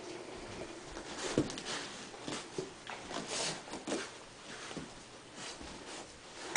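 Lab/hound mix puppy scrambling, rolling and rubbing itself on a carpet: soft, irregular scuffling and rustling.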